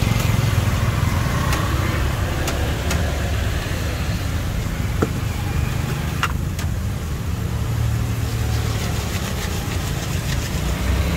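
Steady low rumble of motor traffic running, with a few sharp clicks scattered through it.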